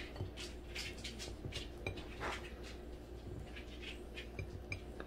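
Faint scattered crackles and light taps as a grill-pressed toasted sandwich is handled and pulled apart on a ceramic plate, with a slightly longer crunchy rustle a little past two seconds in.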